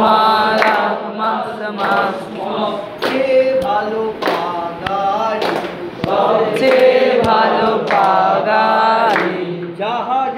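A group of voices singing a Bengali song together, with a few sharp knocks in between.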